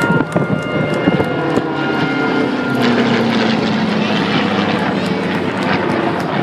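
Beechcraft T-6 Texan II turboprop trainer flying by, its turbine engine and propeller droning with a pitch that falls slowly over the last few seconds as it passes.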